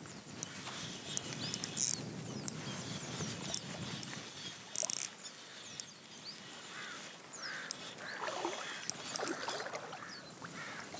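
Spinning reel's drag giving short zips as a hooked fish pulls line during the fight.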